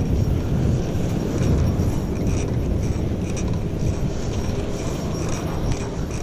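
Low, steady rumble of a pickup truck running just ahead while towing an open utility trailer, with scattered light metallic clinks and rattles.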